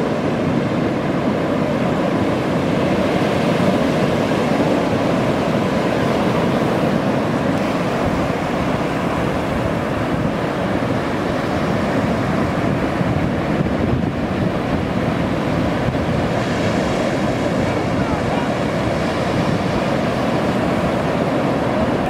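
Pacific Ocean surf breaking and washing up the beach in a steady wash of noise, with wind on the microphone.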